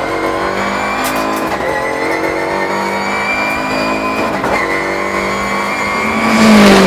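MINI Challenge race car's 2-litre turbocharged four-cylinder engine at full throttle, heard from inside the cabin, its note climbing and dropping at upshifts about a second in and about four and a half seconds in. Near the end the car passes close by, loud, with its pitch falling as it goes.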